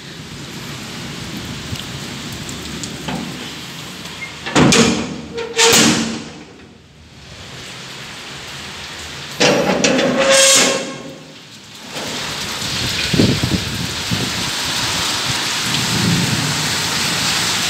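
Heavy rain pouring onto a flat rooftop in a thunderstorm. Two loud sudden bursts of noise break in, the first about a third of the way in and the second past the middle; between them the rain drops away for a moment, then it returns steady and loud for the rest.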